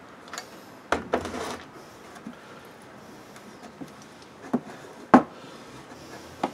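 A few scattered clicks and knocks of small hardware being picked up and set down on a workbench, with a brief rustle about a second in and the sharpest click just after five seconds.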